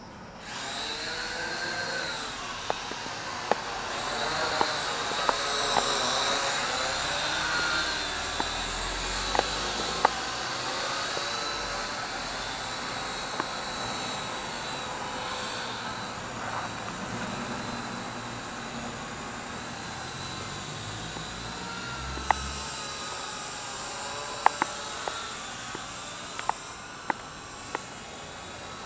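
Syma X8W quadcopter's four small motors and propellers whining in flight, the pitch rising and falling together as the throttle changes, with sharp clicks now and then.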